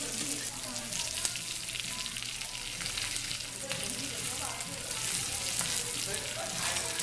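Beef intestines (gopchang and daechang) frying in their own fat on a hot pan with kimchi, onion and chives: a steady sizzle full of small pops.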